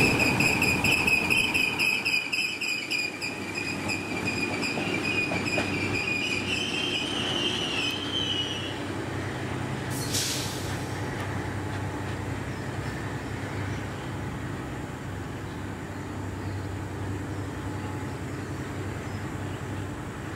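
Train wheels squealing as ore wagons roll past: a high, steady squeal that climbs slightly in pitch and fades out about eight seconds in. After a brief hiss near ten seconds, a low steady rumble of the ore train running away down the line remains.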